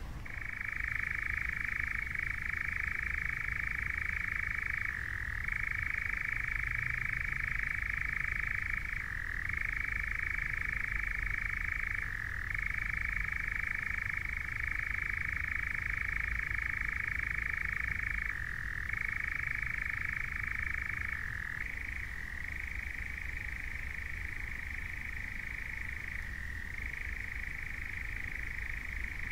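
European nightjar churring: one continuous trill that shifts slightly in pitch every few seconds, its lower strand dropping away about three-quarters of the way through.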